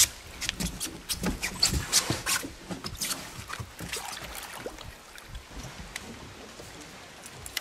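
A hooked spottail bass splashing and thrashing at the water's surface beside the boat: a run of irregular splashes, heaviest in the first couple of seconds and thinning out after.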